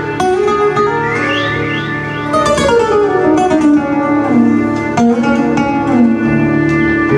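Live Indo-fusion ensemble playing raga Puriya Dhanashree: steel-string acoustic guitar plucking while a violin plays gliding melodic runs over a steady low drone.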